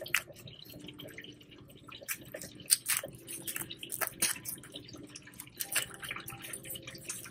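Kitchen scissors snipping and cracking through a lobster tail's shell: irregular sharp clicks and crunches.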